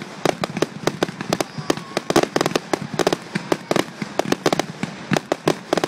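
Aerial fireworks bursting in a rapid barrage of sharp bangs, several a second, recorded through a phone's built-in microphone.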